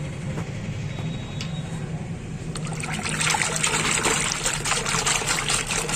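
A hand stirring Holi colour powder into water in a plastic bucket, swishing and splashing, starting about halfway through over a steady low hum.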